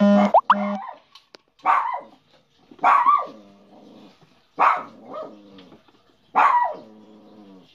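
A dog barking several times, one bark every second or two, each a short call that falls in pitch.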